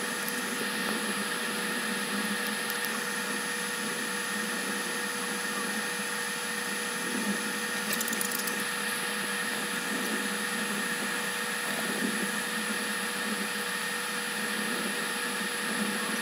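A steady mechanical whirring hum with a few steady tones running through it, and faint ticks about eight seconds in.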